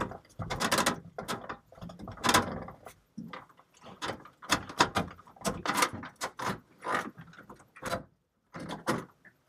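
Irregular clicking and rattling from a Teleflex/SeaStar rotary steering helm being wound over, pushing the spiral-wound steering cable core out of the helm housing.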